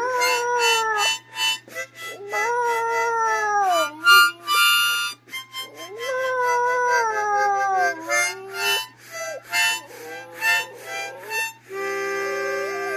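Shetland sheepdog puppy howling along with a harmonica: several long howls, each sliding down in pitch, over held harmonica chords. Near the end only the harmonica plays.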